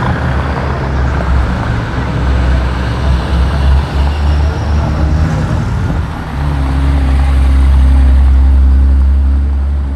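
Road traffic, with a vehicle's engine running close by. A steady low drone swells from about six seconds in and eases off near the end.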